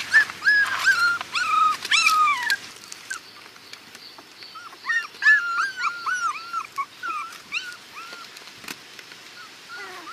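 A puppy whimpering and yelping in short, high-pitched cries. There is a quick string of cries at the start, a pause, and a second string about five seconds in.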